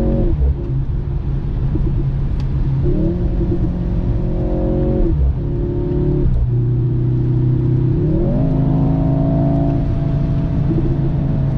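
Mercedes-AMG C43's 2.0-litre turbocharged four-cylinder heard from the cabin while accelerating hard at autobahn speed. The engine note steps up in pitch and drops back a few times. The driver finds the interior sound weak and partly synthetic, nothing like the C43 should sound.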